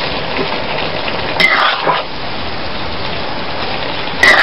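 Vegetables sizzling in a metal wok over a wood fire, a steady hiss. A metal ladle scrapes and knocks against the wok about a second and a half in and again near the end.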